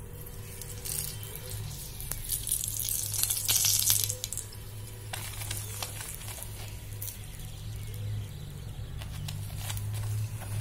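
Oil sizzling as it hits a hot tawa around a paratha, the hiss swelling and loudest about three to four seconds in. After that, a steel spoon scrapes and clicks against the paratha and tawa as it spreads the oil.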